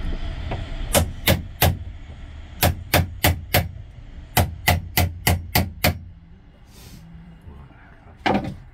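Claw hammer striking a wood chisel to cut into a timber batten: sharp blows in three runs, three, then four, then six, about three a second, followed by a pause and one more knock near the end.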